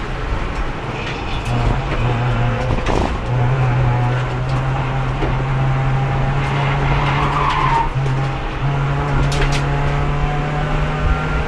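Race car engine heard from inside the car, running steadily under load held in fourth gear, its note dipping briefly near eight seconds in. The car is locked in fourth because its transmission has lost third gear and won't shift at speed. A short tire squeal about seven seconds in.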